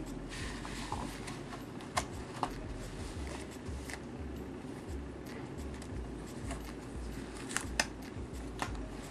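Faint rustling and a few scattered soft clicks as a bald cap is handled, stretched over the head and smoothed down with the fingers, over a low room hum.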